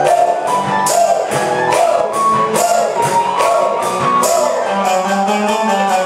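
Live acoustic guitar strummed in a steady beat with an electric keyboard playing along, a children's song performed in a hall.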